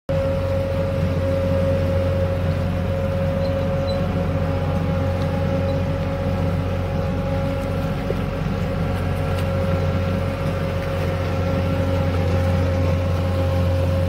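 John Deere skid steer's diesel engine running steadily as the machine drives, with a constant whine over the engine note.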